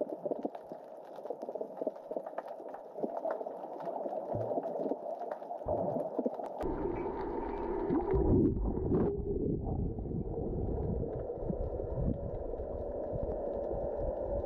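Underwater sound picked up by a camera below the surface during a free dive: a muffled, steady rush with many faint clicks throughout. About six and a half seconds in, a deep rumbling churn of water comes in, peaks around eight seconds in, and carries on.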